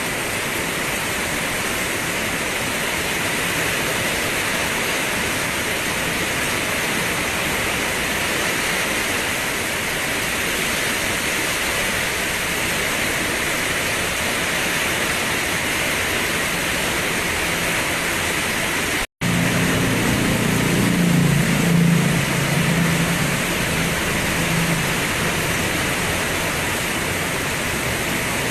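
Steady rain falling, an even hiss. About 19 seconds in the sound drops out for an instant, and after it a low rumble runs under the rain for several seconds.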